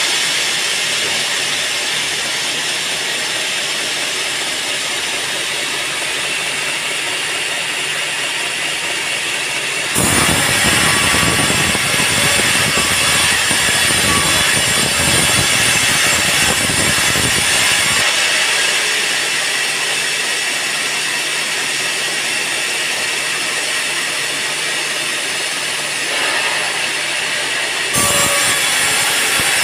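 Sawmill band saw running and cutting teak, a steady high hiss. The sound jumps louder and fuller about ten seconds in, drops back about eight seconds later, and jumps again near the end.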